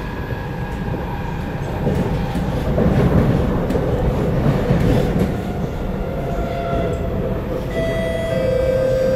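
Kawasaki Nippon Sharyo C751B metro train running at speed, heard from inside the carriage by the doors: a steady rumble of wheels on rail, louder for a couple of seconds in the middle. Whining tones come in near the end.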